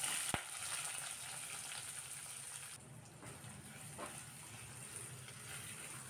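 Freshly sliced onions sizzling in hot oil in a steel kadai. The sizzle jumps up just as they go into the oil, with a sharp click at the start, then runs steadily as they are stirred with a silicone spatula.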